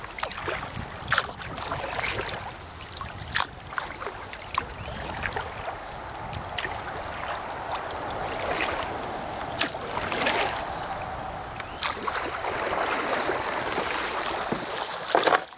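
Running river water: a steady rush with scattered sharp ticks and splashes.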